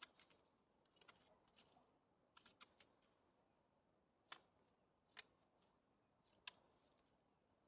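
Near silence broken by faint, sharp clicks and taps, about eight of them spaced irregularly, the clearest ones a little past four, five and six seconds in.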